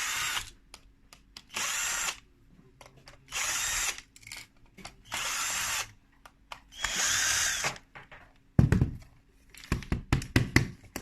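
Electric screwdriver running in five short bursts, each under a second, as it backs out the screws of the housing one after another. Near the end come a few low knocks and a clatter of clicks as the loosened parts and screws are handled.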